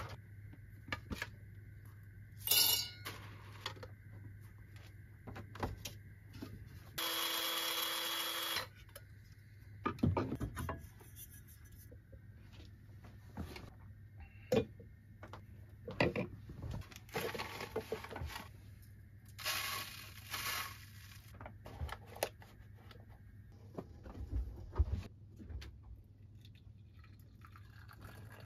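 Electric coffee grinder running for under two seconds with a steady motor whine, among clinks and knocks of enamel mugs and a ceramic pour-over cone set on a wooden counter. Near the end, hot water is poured from a kettle into the pour-over filter.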